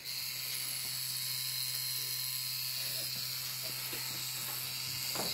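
Electric tattoo machine with a Sharpie marker clamped in place of a needle, running with a steady buzz as it draws on skin.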